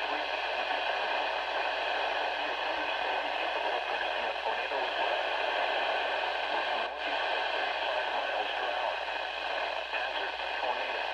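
Weather radio receiver putting out a steady static hiss, with a brief dip about seven seconds in.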